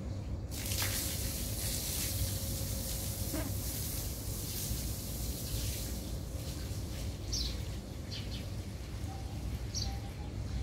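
Garden ambience: a steady low rumble, with a high hiss that starts suddenly about half a second in and fades away by about six seconds. A few short, high bird chirps follow near the end.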